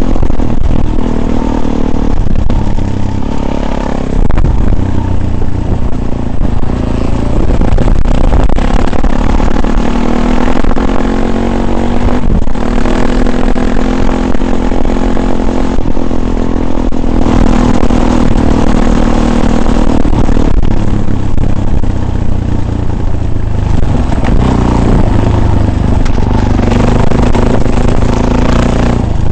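Off-road vehicle engine running under load, its revs rising and falling as it drives over rough ground, with rattling and scraping from the bumpy ride.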